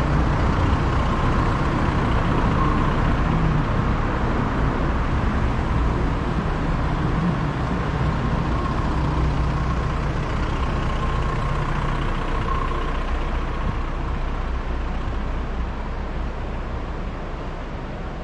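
City street traffic: a steady rumble of car engines and tyres that slowly gets quieter.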